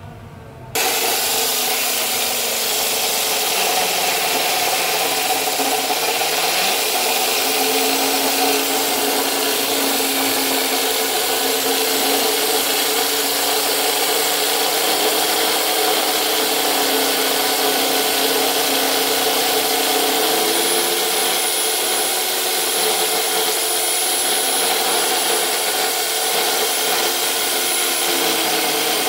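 Cordless drill spinning a core bit that grinds a round hole into granite. It starts abruptly about a second in and runs steadily, its whine stepping up slightly in pitch a few seconds in and again past the middle.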